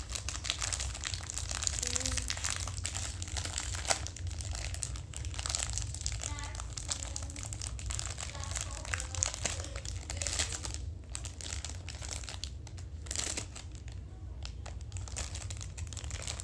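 Crinkling and crackling of a toy mystery bag's packaging being handled and pulled at while it is struggled open, thinning out in the last few seconds.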